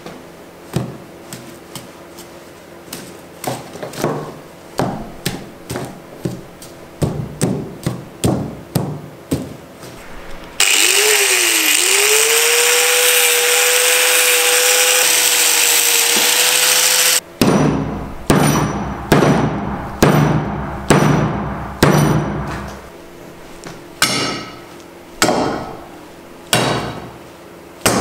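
Sharp chopping and striking blows on the plastic connectors of a car engine wiring harness. About ten seconds in, an angle grinder starts and runs for about seven seconds with a steady whine, cutting into the connectors, then stops suddenly. Heavier blows follow about once a second.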